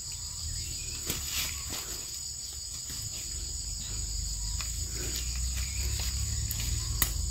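Insects chirring in a steady, high-pitched drone, with a low rumble beneath and a couple of sharp clicks.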